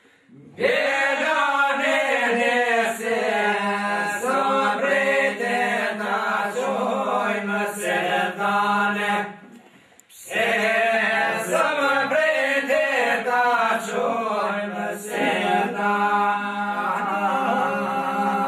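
Men singing a northern Albanian two-part polyphonic folk song a cappella: a sung melody over a steady held low drone. The singing breaks off briefly about halfway, then starts again.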